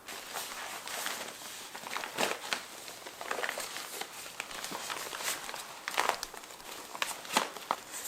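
Paper being handled for journal decorating: rustling and crinkling with irregular sharp crackles and taps.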